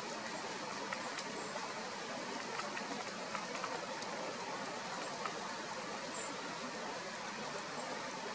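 Steady rushing hiss of water, with faint scattered ticks and a short high peep about six seconds in.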